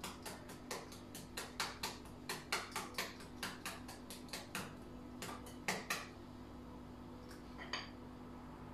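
A fork clinking against a glass bowl as it beats pancake batter, in quick light clicks about four a second, stopping about six seconds in; one more click near the end.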